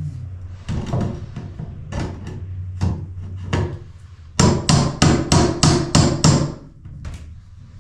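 Hammer striking a nailed-up wooden board: a few scattered blows, then a fast run of about eight blows, roughly four a second, which is the loudest part.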